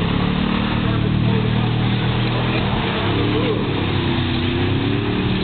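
Several race car engines running at speed together, one rising and then falling in pitch near the end, over a steady rushing noise.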